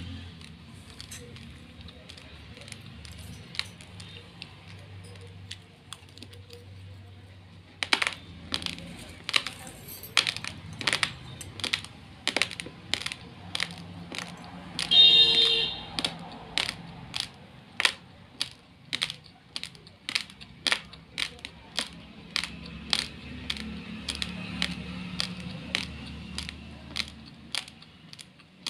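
Hard raw rice grains crunching as they are chewed: sharp crisp cracks at about two a second, sparse at first and then steady and loud from about a third of the way in. About halfway through, a steel spoon clinks and rings briefly against the steel bowl.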